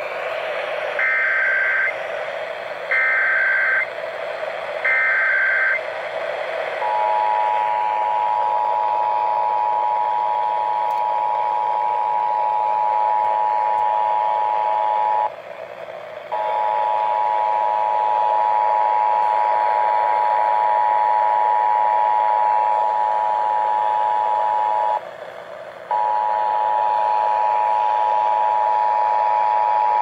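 Emergency Alert System Required Monthly Test heard through the small speaker of an Eton FM radio. Three short bursts of the SAME digital header chirp out about two seconds apart. Then the steady two-tone EAS attention signal sounds for over twenty seconds, cutting out briefly twice, over a light background hiss.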